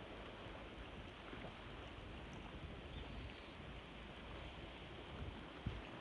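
Steady rushing wind noise over the microphone, with a shifting low rumble and one short thump near the end.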